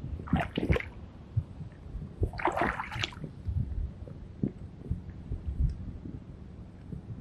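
Shallow seawater sloshing and splashing in two short bursts, about half a second and two and a half seconds in, over a low rumble.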